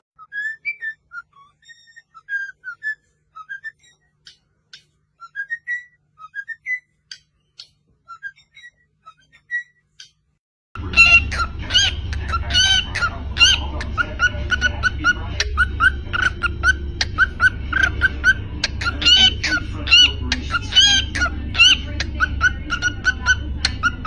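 Cockatiels chirping and whistling: short, scattered chirps at first, then about eleven seconds in a quicker run of repeated up-and-down chirps, about two a second, over a steady low hum.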